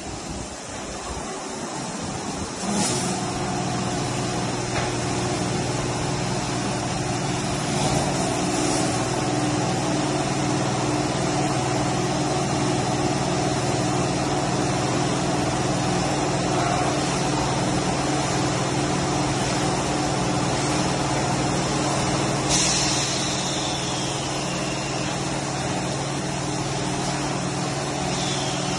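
Automatic car wash machinery running: a steady motor hum under the hiss of water spraying, with sudden louder hisses about three seconds in, at about eight seconds and near twenty-three seconds.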